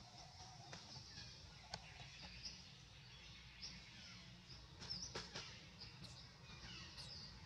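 Faint birdsong: short high chirps repeating every second or so, with a few sharp clicks about two seconds in and again around five seconds in.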